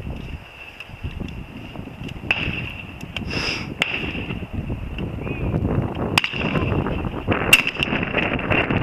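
Shotgun shots on a clay range, two sharp reports about a second and a half apart near the end and a fainter one earlier, over a low rumble of wind on the microphone.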